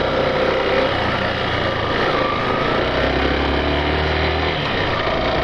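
Yamaha Factor 150 motorcycle's single-cylinder four-stroke engine running as it rides along beach sand, its pitch drifting slightly. A low drone strengthens about three seconds in and falls away shortly before the end.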